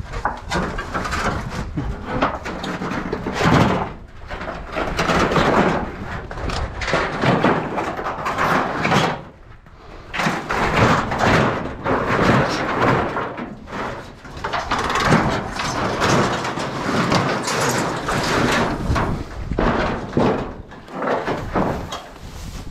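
Continuous rustling and scraping with irregular knocks and clatters, the sound of debris such as boards and sheet tin being handled and turned over.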